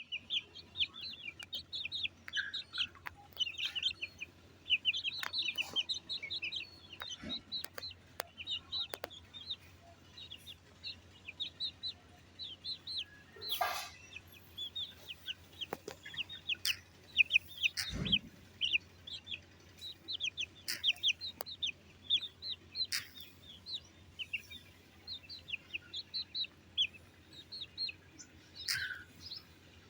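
Silkie chicks peeping: a constant stream of short, high peeps from many chicks at once. A single low thump sounds a little past halfway.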